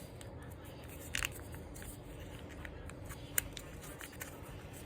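Paper being folded and creased by hand: faint rustling with a few short crisp clicks, the clearest about a second in and again past the middle.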